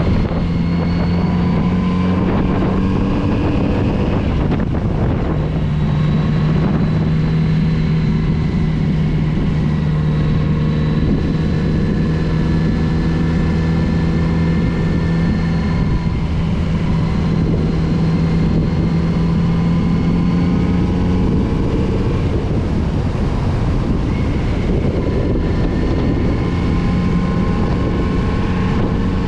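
Kawasaki Z900RS inline-four engine running under way, its pitch rising and easing as the throttle opens and closes, with a short dip about four seconds in and again near the end. Wind rushes over the microphone.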